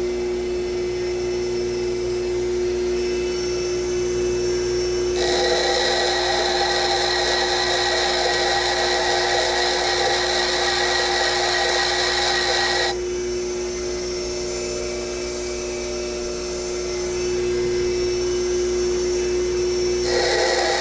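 A power grinder running with a steady hum while it grinds one side of a steel carriage bolt flat. The harsher grinding noise of metal on the wheel sets in about five seconds in, eases off around thirteen seconds, and comes back near the end.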